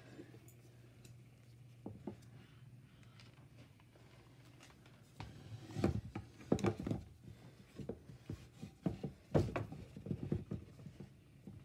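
Tumblers being handled on a homemade PVC-pipe cup turner: a run of light knocks and clatter as the cups are pulled off and fitted back onto the turner arms, starting about halfway through. A low hum at the start stops about two seconds in.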